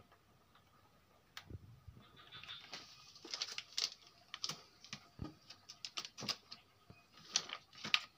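Hands handling things on a table: irregular light clicks and taps, with some rustling in the first half.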